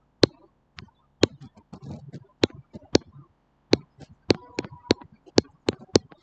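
A stylus tapping and clicking against a tablet screen while handwriting: about a dozen sharp, irregular clicks, bunching closer together in the second half.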